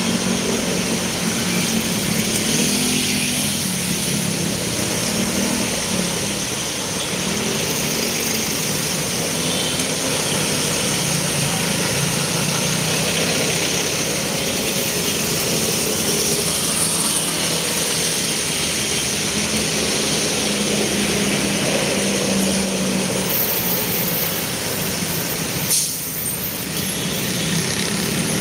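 Busy city road traffic heard from a moving bike: a steady mix of car, bus and motorcycle engines with the rush of the ride. A single sharp knock sounds near the end.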